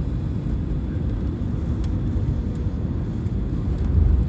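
Cabin noise of an Airbus A320neo on short final just above the runway: a steady low rumble of airflow and its CFM LEAP-1A engines at approach power, growing a little louder near the end.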